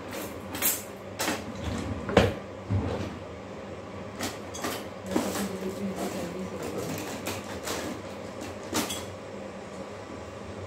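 Kitchen handling noise: scattered knocks and clicks of things being moved about, the loudest about two seconds in.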